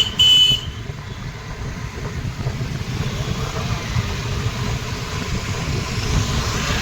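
A vehicle horn beeps twice in quick succession, then a steady low rumble of a two-wheeler's engine and road noise while riding.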